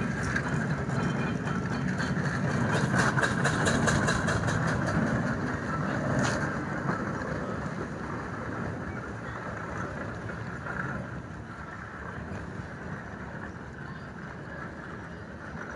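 Steam roller under way towing a living van, its exhaust beating in a quick even rhythm of about five chuffs a second. The sound is loudest a few seconds in, with a sharp clack about six seconds in, then fades steadily as the roller moves off.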